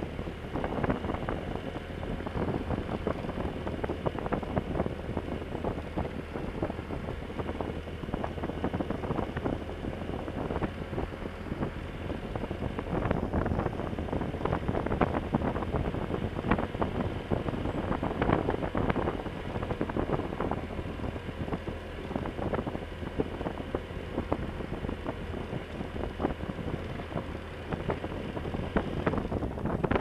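Motorcycle riding along a gravel road: its engine runs at a steady low hum under heavy wind noise on the microphone, with a constant crackle of gravel under the tyres.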